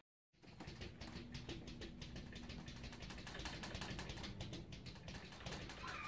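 Cats' paws tapping against a mirror: a quiet, rapid run of light taps, many a second, starting about half a second in.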